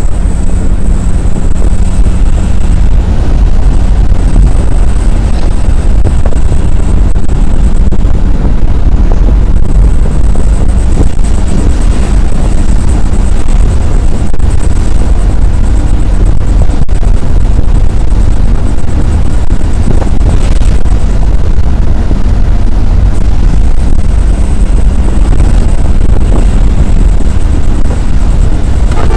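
Isuzu Elf minibus driving at speed on a highway: a loud, steady low rumble of engine, tyres and wind, with wind buffeting the microphone.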